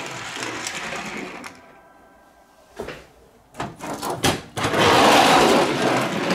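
Small die-cast toy vehicles handled on a hard play board: a cluster of sharp clicks and clacks as they are set down, then a loud, steady rolling whir of toy wheels pushed along the surface in the second half.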